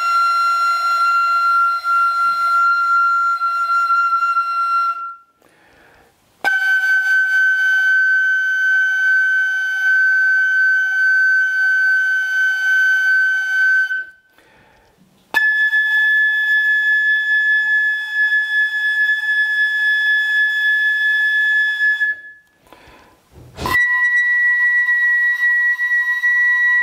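Bamboo pífano (Brazilian transverse fife) playing four long held notes that climb step by step up its second octave: Fá, Sol, Lá, Si. The first three are held about five to seven seconds each, with a short breath between notes, and the last starts near the end.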